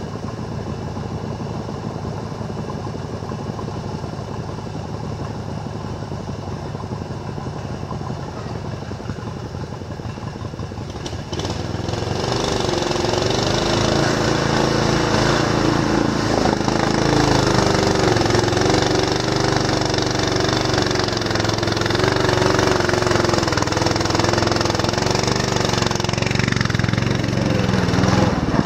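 Riding lawn mower engine running steadily, then much louder from about eleven seconds in, with a wavering engine note under load.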